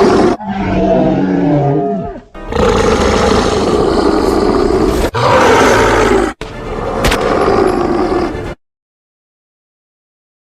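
A run of loud creature-roar sound effects played back to back, each lasting one to three seconds and cut off cleanly. About half a second in comes a shorter sound with gliding pitches, and the roars stop about two seconds before the end, leaving silence.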